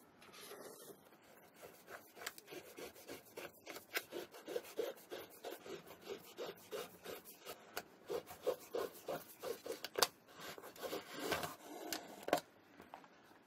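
Flat shoelaces being pulled through the eyelets of a sneaker as it is unlaced: quick, repeated rubbing strokes, with a few sharper clicks, the loudest about ten seconds in.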